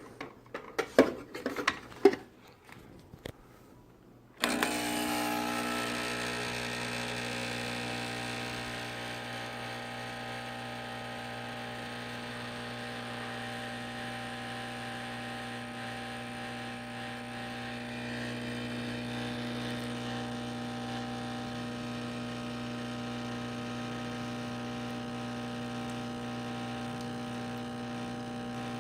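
A few clicks and knocks, then about four seconds in a Saeco espresso machine's pump starts and runs with a steady hum while it pulls an espresso shot.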